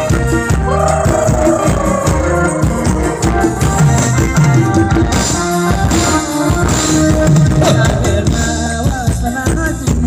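Live band playing ramwong dance music: a steady drum-kit beat under a lead melody that slides slowly down in pitch about a second in.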